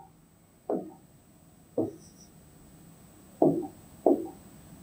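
Four soft taps on an interactive whiteboard's touchscreen, made while selecting the pen and colour palette, spaced irregularly about a second apart.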